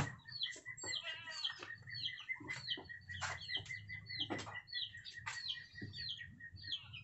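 Chickens clucking and chirping in short, falling calls several times a second, over a steady thin high tone, with a few scattered knocks.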